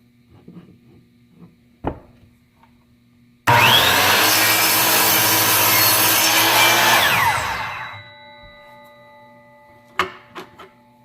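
Delta Cruzer 10-inch sliding compound miter saw starting up with a rising whine, running loud and steady for about four seconds as its blade crosscuts a mahogany board, then winding down with a falling whine. A click comes before it starts, and a few knocks come near the end.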